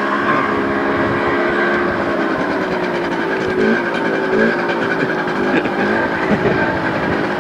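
Motor scooter engine running steadily as it is ridden, its pitch shifting slightly now and then.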